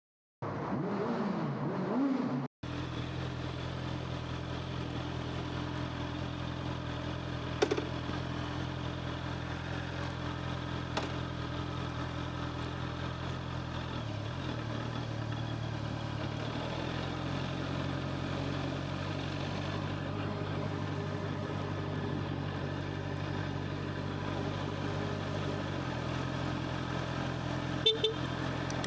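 Honda CBR650R's inline-four engine running at a steady idle, heard through a camera's built-in microphone. There is a short break about two and a half seconds in, and a few sharp clicks later on, two of them close together near the end.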